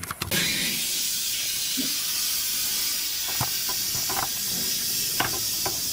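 Compressed-air blow gun blowing a steady hiss, cleaning dirt off the top of a removed fuel tank, with a few light knocks in the middle and toward the end.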